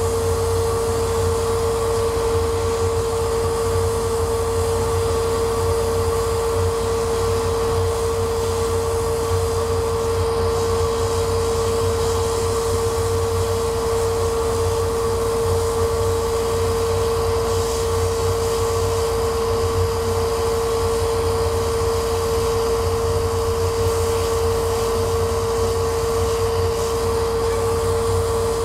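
Laser cutter running as its head cuts into a wooden sheet: a steady blower-like whir with a constant hum tone and a low drone underneath.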